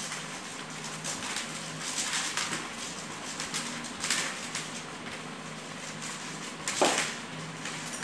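Dried maize kernels being rubbed off the cobs by hand, rattling and pattering into a plastic tub in irregular bursts, with one louder burst near the end.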